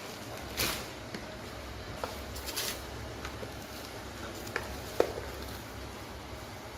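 Packaging being handled during an unboxing: brief rustles and a few sharp taps and clicks, the sharpest about five seconds in, over a steady low background hum.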